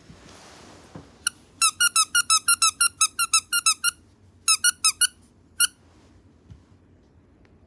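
Cat ball toy chirping: a single high chirp, then a fast run of identical short chirps at about six a second, a few more spaced out after a pause, and one last chirp.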